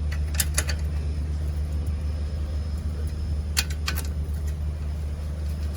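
A steady low machine hum, with two clusters of sharp metallic clicks, about half a second in and again near four seconds, from a spanner on a generator's engine-mounting bolt as it is tightened.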